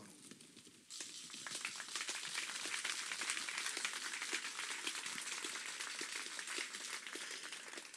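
Crowd applause, faint, starting about a second in and going on steadily as dense clapping.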